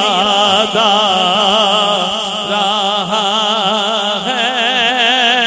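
A man singing a naat into a microphone, holding long melismatic lines whose pitch wavers up and down continuously.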